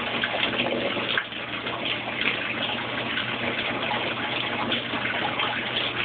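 Water spraying into a Kenmore Oasis top-load washing machine as it fills, a steady rush of water, during the self-test step C1 that adds water while the tub spins.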